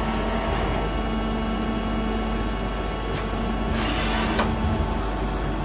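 Takisawa EX-310 CNC lathe running, a steady machine hum with a constant low tone as the tool turret moves, and a short hiss about four seconds in.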